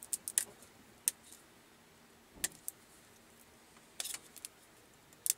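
Scattered sharp clicks and small knocks, in a few brief clusters, from hands fiddling with the cap of a small bottle of fish sauce while trying to get it open.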